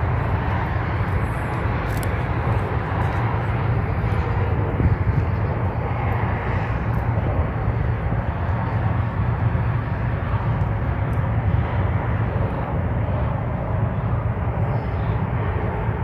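Steady low rumble of outdoor background noise, even and unbroken, heaviest in the bass.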